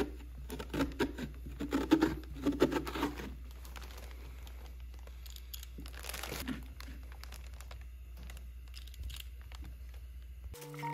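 Scraping out a raw pumpkin's stringy pulp and seeds with a metal scoop and knife, with wet tearing and crackling strokes and paper crinkling underneath. The strokes come in a run over the first three seconds and again about six seconds in, quieter in between.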